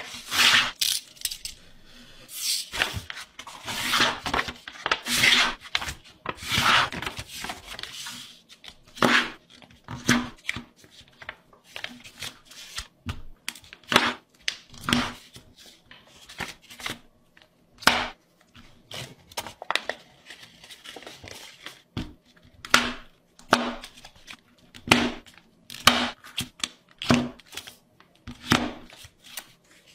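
A sheet of paper being folded by hand on a cutting mat: irregular rustles and short sliding swishes as the paper is turned over and the creases are pressed down, many separate strokes with short gaps between them.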